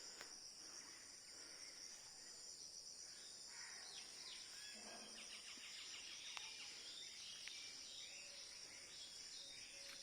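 Steady high-pitched drone of insects, with faint short chirps scattered through the middle.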